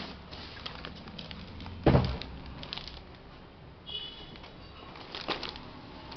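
Scattered clicks and light knocks of laptop parts and tools being handled during a repair, with one heavier thump about two seconds in.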